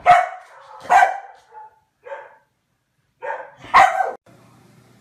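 A dog barking, about six barks. The loudest come at the start, about a second in, and just before four seconds, and the barking stops abruptly soon after.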